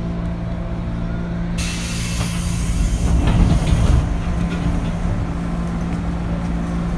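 Interior running sound of a JR 205 series electric train, its external-fan traction motors giving a steady hum. About a second and a half in, a sudden loud hiss starts, swelling with a rumble for a couple of seconds before easing off.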